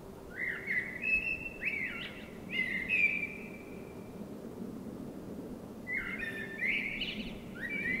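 Eurasian blackbird singing two phrases of fluting whistles with quick upward slurs, the first starting about half a second in and the second about six seconds in, over a faint steady low hum.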